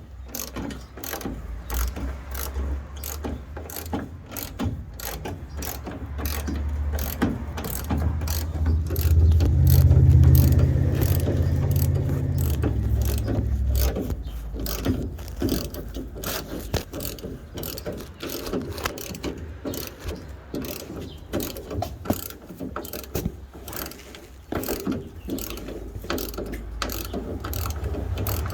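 Hand socket ratchet clicking rapidly as bumper nuts are turned off, with a low rumble swelling through the middle.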